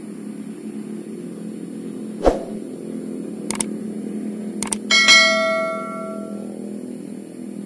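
Subscribe-button sound effect: a few short mouse clicks, then a ringing notification-bell ding about five seconds in that dies away over a second or so. Under it runs a steady low hum, with a single knock about two seconds in.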